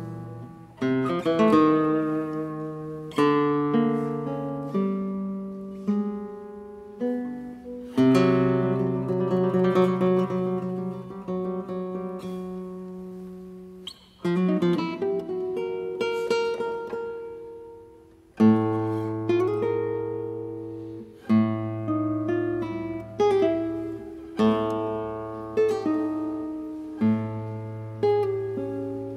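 Solo classical guitar with nylon strings, played in a contemporary concert piece: full chords struck sharply and left to ring out, one after another, many with a deep bass note under them.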